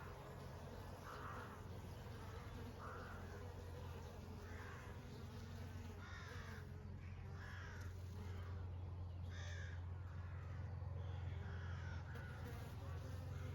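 Honey bees humming steadily, while a bird calls over them about ten times at irregular intervals, a second or two apart.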